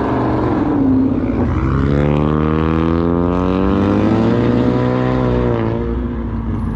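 V8 car engine pulling out and accelerating hard: its pitch climbs about a second and a half in, holds high, then eases down near the end.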